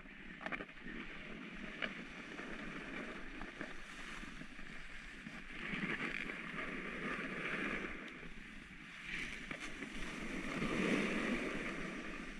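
Snow-sport edges sliding and scraping over firm groomed snow, a steady rushing hiss with wind on the microphone, swelling louder twice, about six and about eleven seconds in.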